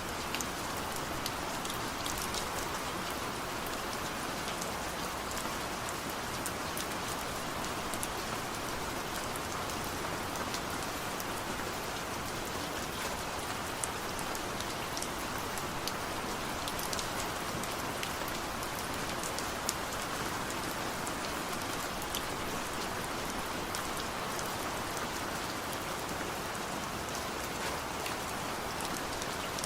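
Steady rain falling: an even, continuous hiss dotted with many small ticks of individual drops.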